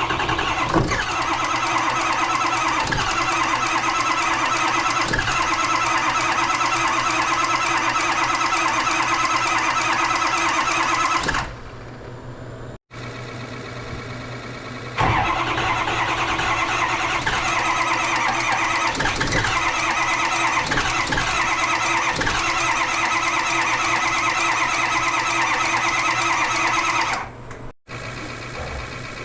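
A Ford 6.0 Powerstroke V8 turbodiesel running after its head stud repair, with a high whine over the engine note. It is loud and steady for two stretches of about eleven seconds, each of which cuts off abruptly to a quieter engine sound.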